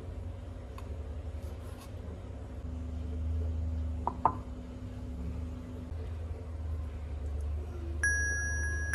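A ceramic bowl set down on a wooden chopping board: one sharp knock with a short ringing clink about four seconds in, over a steady low hum. Soft chime-like music notes come in near the end.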